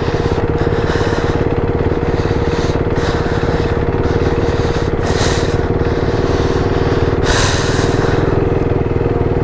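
KTM RC 390's single-cylinder engine running at a steady speed, with no revving up or down. Two brief rushes of hiss come about five and seven seconds in.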